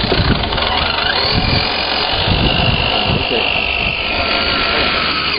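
Radio-controlled scale crawler truck's small electric motor and gearbox whining as it crawls slowly over dirt and roots, the whine rising into a thin high tone for a couple of seconds in the middle.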